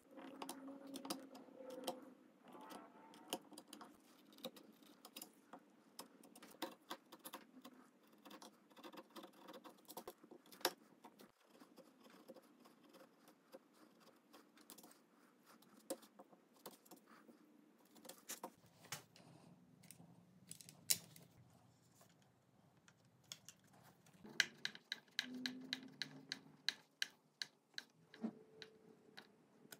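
Faint, scattered clicks, taps and scrapes of a hand chisel cutting a hinge mortise in walnut. Near the end comes a quick run of even clicks, about six a second, as small screws are driven into the brass quadrant hinge.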